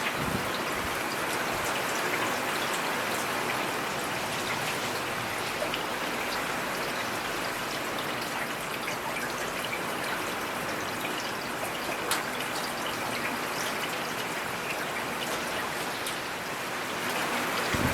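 Steady rain falling, with scattered drops pattering and one sharper drop hit about twelve seconds in.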